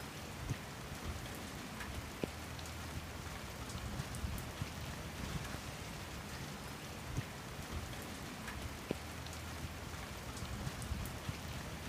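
Steady rain falling on wet paving and puddles, with single drops ticking out louder here and there.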